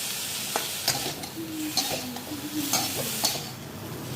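Aloo posto sizzling in a pan while being stirred with a spatula: a steady frying hiss, with the spatula knocking and scraping against the pan about five times. The hiss eases a little near the end.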